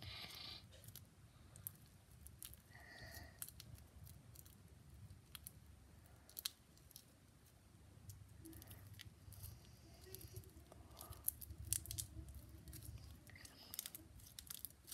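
Sticky slime being stretched and pulled between the fingers, giving off faint, scattered little clicks and crackles.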